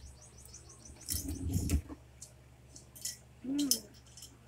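Small clicks and taps of hands and a utensil at dinner plates, a dull knock about a second in, and a child's short hummed "mm" about three and a half seconds in.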